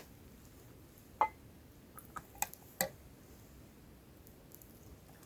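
Campfire crackling: a handful of sharp pops from the burning wood. The loudest comes about a second in, and four more follow in quick succession around two to three seconds in.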